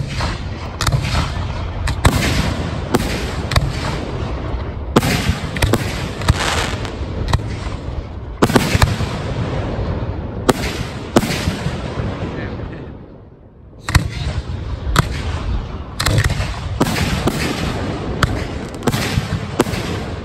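Fireworks display: aerial shells bursting in a rapid run of sharp bangs. The bangs die away briefly about two-thirds of the way through, then start again.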